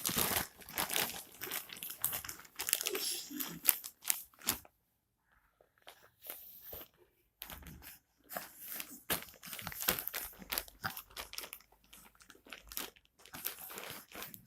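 Plastic bag crinkling and rustling in irregular bouts of sharp crackles, with a short pause a little before halfway.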